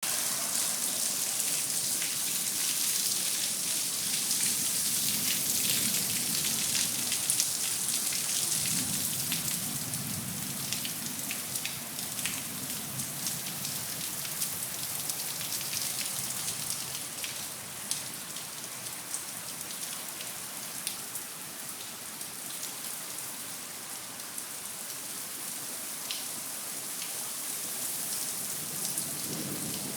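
Rain falling steadily, with many sharp drop impacts through a dense hiss; it eases slightly after about ten seconds.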